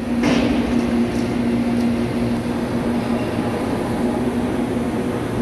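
Steady machine-shop running noise: a continuous hum with a low droning tone and a noisy hiss over it.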